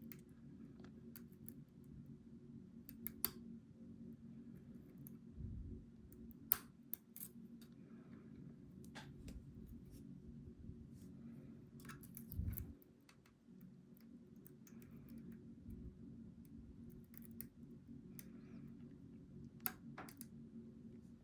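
Steel lock picks working the pins of a Goal V18 lock: scattered sharp metallic clicks at irregular intervals, with a couple of dull low knocks, over a steady low hum.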